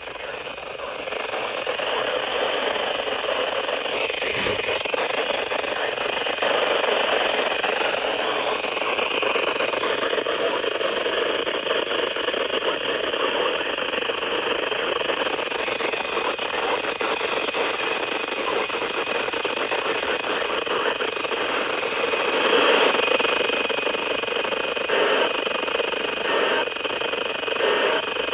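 Radio static: a steady hiss of noise from a radio receiver, with a single sharp click about four and a half seconds in.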